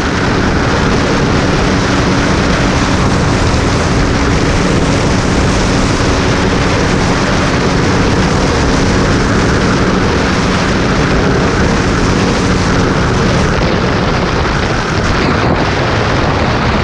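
Single-cylinder supermoto motorcycle cruising at highway speed, its engine holding a steady note under heavy wind rush on the microphone. The engine note fades under the wind near the end.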